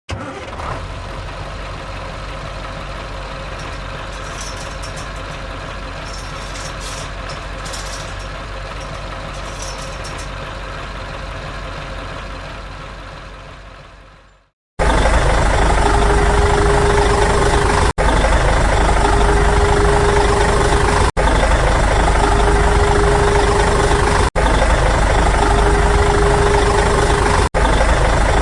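A steady motor hum that fades away about halfway through. Then a louder engine idling sound starts abruptly and repeats as a loop about every three seconds, with a short tone in each repeat and a brief cut-out between repeats.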